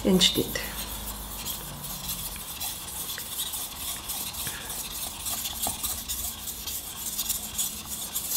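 Single-bevel Japanese kitchen knife being ground on a wet water stone: repeated back-and-forth scraping strokes of steel on stone. The bevel is being worked until a burr forms on the edge.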